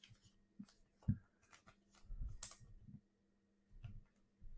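Faint handling of trading cards: a few soft clicks and a brief rustle as cards are slid and flipped.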